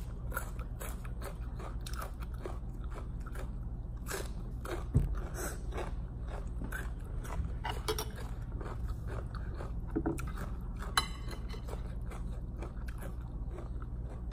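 A person chewing and crunching mouthfuls of raw cabbage and cucumber salad with noodles, many short crisp crunches, with spoon and fork scraping the plate. One sharper thump about five seconds in, over a steady low hum.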